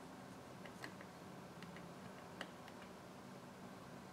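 Faint scattered clicks of metal tweezers handling tiny phone parts, two a little louder about a second and two and a half seconds in, over a low steady hum.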